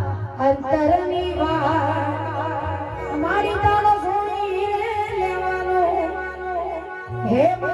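A woman singing a Gujarati devotional ramel song to the mother goddess into an amplified microphone, in a wavering, ornamented melody. Under the voice are sustained low bass notes that change every second or so.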